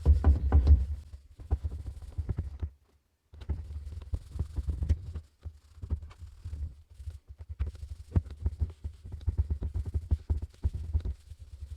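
Rubbing and irregular low thumps from a plastic headlight lens being scrubbed back and forth by hand with a headlight-restoration wipe. The sound drops out briefly about three seconds in, then resumes.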